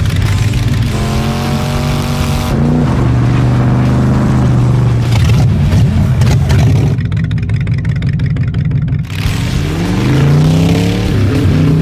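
Car engine running and revving, its pitch holding steady for stretches and sweeping up and down in places. For a couple of seconds in the middle the sound turns duller.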